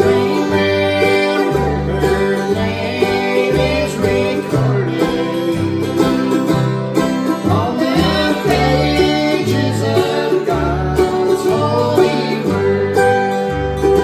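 Background music in a bluegrass-country style, with plucked strings over a bass line that steps between notes about twice a second.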